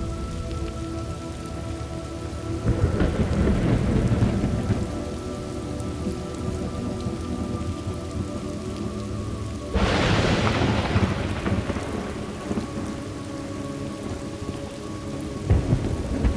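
Thunderstorm ambience: steady rain with thunder, a rumble rolling in about three seconds in, a louder, sharper clap about ten seconds in that dies away slowly, and another rumble starting near the end.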